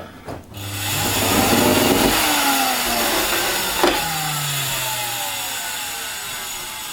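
Miele S5210 canister vacuum cleaner's motor starting up and running with a loud whine, its sound that of a failing motor about to burn out. About four seconds in there is a click, after which the motor winds down with falling pitch.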